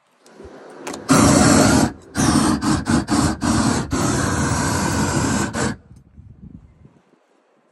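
Gas roofing torch burning at full flame against torch-on bitumen membrane: a loud, steady rushing noise that starts about a second in. It dips briefly near two seconds, then cuts back suddenly, leaving a faint low hiss.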